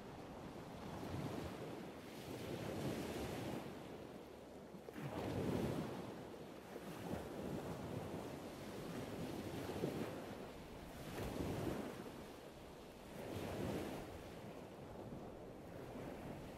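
Sea waves washing in and breaking, swelling and falling away about every two seconds.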